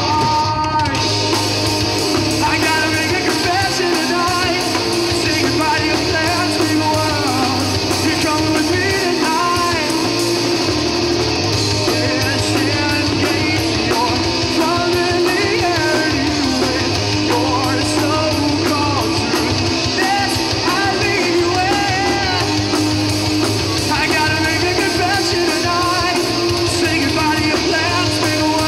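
A rock band playing live: loud distorted electric guitars, bass and drums, with vocals.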